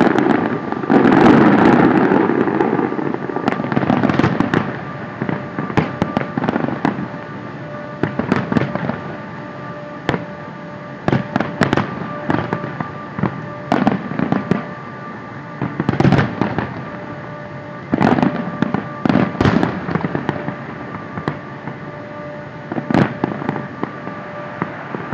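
Aerial fireworks shells bursting at irregular intervals, sharp bangs and crackles one after another. The bursts come thick and loud in the first few seconds, then more spaced out.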